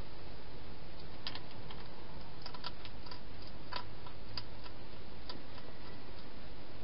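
A hedgehog eating at a bowl: a scatter of short, irregular clicks over a steady hiss.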